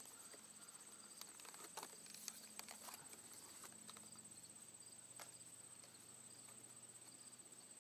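Near silence: a faint, steady high insect trill with a few small clicks and taps as a camcorder is turned by hand and screwed onto a camera-mount arm.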